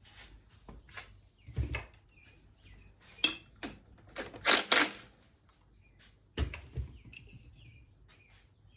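Metal tools and motorcycle parts being handled: irregular clinks and knocks, with two sharp clanks close together about four and a half seconds in and duller thuds near two and six and a half seconds.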